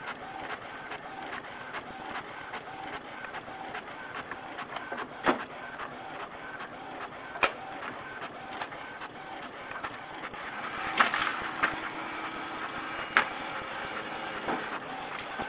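Desktop fax machine printing a page: its paper feed runs with a regular repeating whir, broken by a few sharp clicks.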